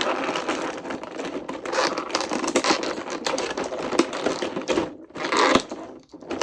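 Plastic packaging crinkling and rustling as action-figure parts are pulled out of it, a dense run of small crackles that breaks off about five seconds in and then comes back in two short bursts.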